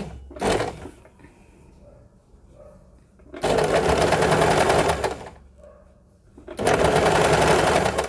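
Electric sewing machine stitching fabric in stop-start runs: a short burst just after the start, then two steady runs of under two seconds each, about three and a half and six and a half seconds in.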